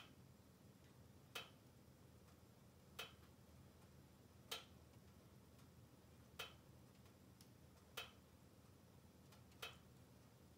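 Faint wood fire crackling inside a closed log-burning stove: seven sharp single pops, about one every second and a half, over a faint low hum.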